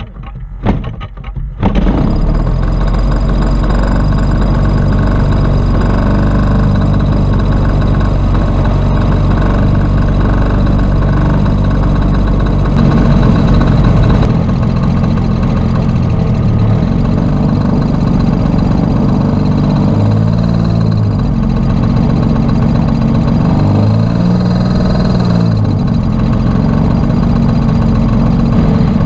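A large model airplane's piston engine starting: a few knocks, then it catches about two seconds in and runs steadily at taxi power, its propeller turning. The engine note dips and comes back up twice in the second half as the throttle is worked.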